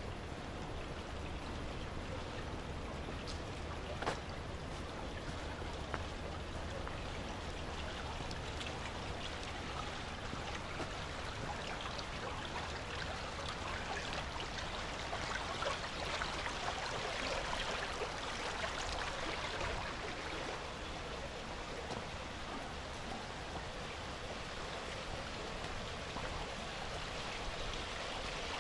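Shallow water running and trickling along a concrete drainage channel, over a low steady hum, with a sharp tap about four seconds in.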